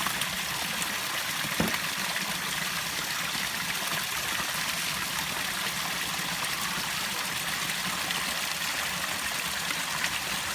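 Water from a backyard rockery waterfall splashing and trickling steadily over rocks into the pond, with a single sharp knock about a second and a half in.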